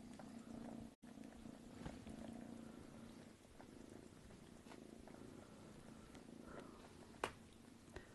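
A domestic cat purring, faint and steady, strongest in the first few seconds. One sharp click about seven seconds in.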